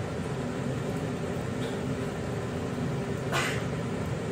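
Steady low kitchen hum as pieces of hand-pulled noodle dough are torn off and dropped into a pan on the stove, with one short splash-like rush about three seconds in.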